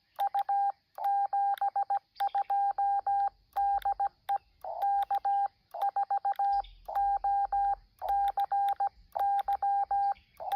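Morse code (CW) tone near 800 Hz keyed in dits and dahs, sending groups of characters with short gaps between them; a faint click sounds at the edges of the marks.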